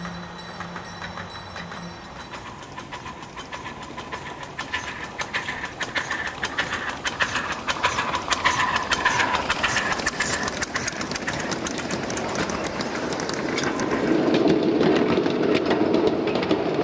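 A small live steam locomotive on 7½-inch-gauge track passing with a rapid, even beat of exhaust chuffs and wheel clicks, growing louder as it comes near. Near the end it gives way to a louder, lower rumble.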